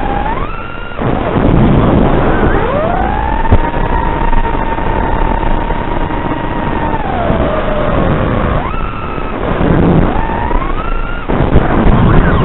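An FPV racing quadcopter's brushless motors whining, the pitch following the throttle. The pitch punches up quickly, holds steady for several seconds, sags about 7 s in, then climbs sharply again twice, with rushing air noise between the throttle punches.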